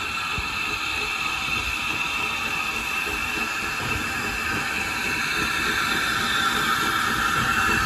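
Small steam tank locomotive hauling coaches, running slowly into a station. There is a steady high-pitched hiss and whine over a low rumble, growing louder as it draws near.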